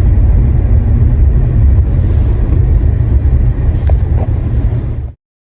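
Loud, steady low rumble that cuts off abruptly about five seconds in.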